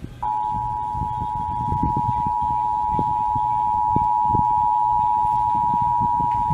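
Emergency Alert System attention signal: two steady tones sounded together (853 and 960 Hz), starting a fraction of a second in and held unbroken. It is the alert tone that comes before the spoken message of a Required Monthly Test.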